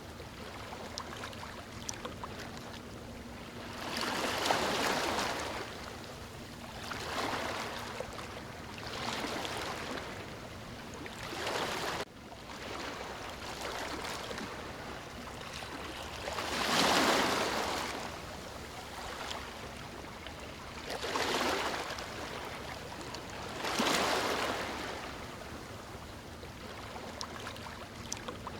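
Ocean waves breaking on a beach: about seven swells of surf, each building and fading, the biggest a little past halfway and near the end. There is an abrupt drop in level a little under halfway through.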